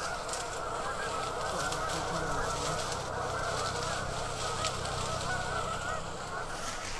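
A large flock of geese flying overhead, many birds honking at once in a steady, dense chorus.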